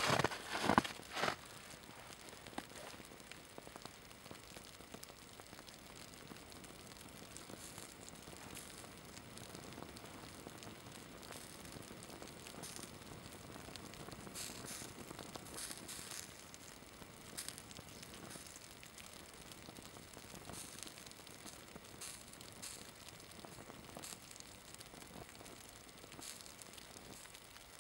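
Faint crackling and sizzling of an Adidas synthetic sports shirt's hem burning and melting, over a steady outdoor hiss. A few louder rustles come in the first second or so.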